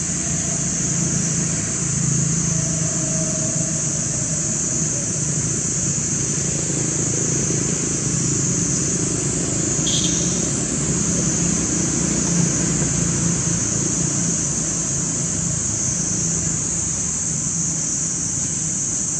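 Steady outdoor background of road traffic, a low continuous rumble, with a constant high-pitched hiss over it and a single faint click about halfway through.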